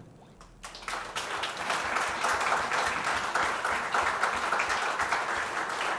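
Audience applauding at the end of a jazz trio's piece, the clapping starting about a second in after a quiet moment and holding steady.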